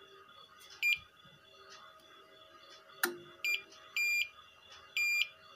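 V-Guard Prime 1050 inverter's buzzer beeping as mains power is connected: one short beep about a second in, and a sharp click a few seconds in. Then come a short beep and two longer beeps as the inverter detects the mains and changes over from battery.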